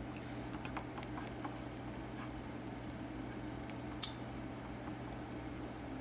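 Quiet room tone with a steady low hum and hiss, a few faint small clicks in the first second and a half, and one sharp short click about four seconds in.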